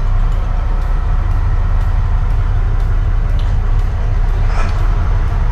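Cummins 6CTA 8.3 inline-six turbodiesel marine engines idling with a steady deep rumble, warming up just after start-up.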